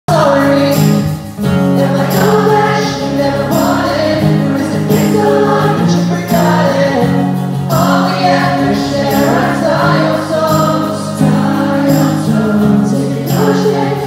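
A band playing live, with acoustic guitars and electric bass and a voice singing over regular percussion hits.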